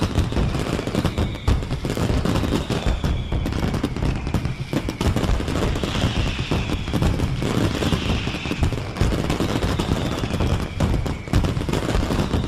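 Fireworks going off in a rapid, continuous volley of bangs and crackles, with faint high whistles gliding downward over them.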